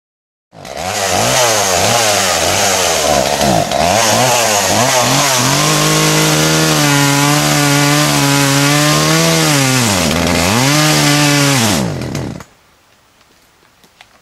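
Two-stroke chainsaw cutting cedar, its engine pitch repeatedly dropping and recovering as the chain bites into the wood, then holding steady at high revs. It stops abruptly about twelve seconds in.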